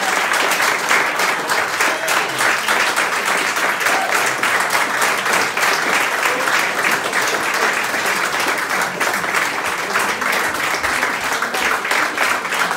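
A roomful of people applauding: many hands clapping in a dense, steady patter that holds at an even level throughout.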